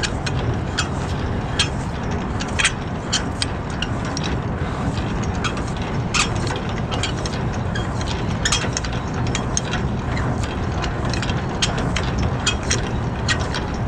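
Flatbed trailer's landing gear being hand-cranked, its crank and gearing giving irregular clicks and clanks, a few a second, over a steady low rumble.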